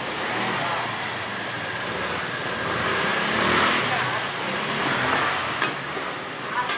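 Steady market background noise that swells up in the middle and eases off again, with a couple of short sharp clicks near the end.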